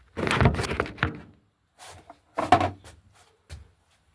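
Handling noise: knocks, scrapes and clunks as things are moved and set down, in two bursts, one right at the start lasting about a second and a shorter one about two and a half seconds in.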